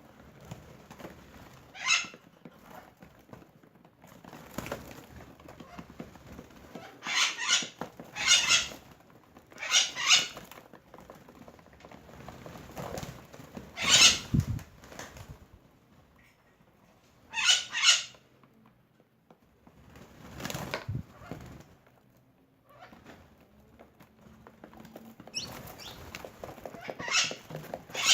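Birds' wings flapping in short bursts every few seconds as birds take off and land, with quieter stretches in between.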